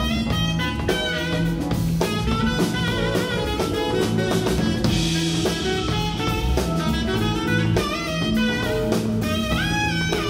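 Live band playing: a saxophone carries the melody over drum kit, bass guitar and keyboard.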